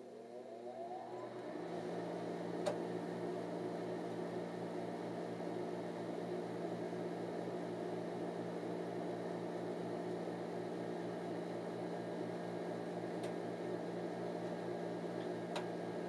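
Draft inducer motor of a 2002 Comfortmaker 50,000 BTU gas furnace starting up: a rising whine over the first second or so, then a steady hum as it purges the heat exchanger before the burners light. A single click sounds about three seconds in.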